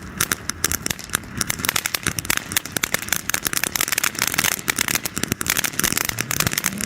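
FireHawk Witch Craft firework fountain burning, throwing out a dense, rapid run of crackles over a steady hiss.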